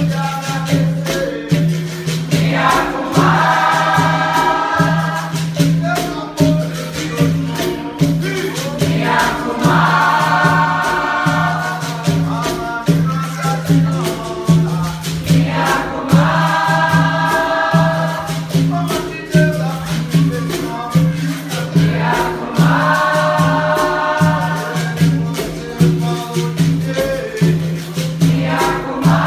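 Capoeira roda music: berimbaus and pandeiros keep a steady, pulsing rhythm while the group sings. Sung chorus phrases come back about every six to seven seconds.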